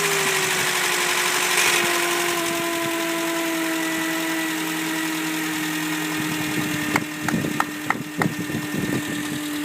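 Mercedes C230's M271 four-cylinder engine idling just after its first start following timing and balance chain replacement. It runs with a steady hum whose pitch eases slightly lower as the high idle settles. A few short sharp sounds come over it near the end.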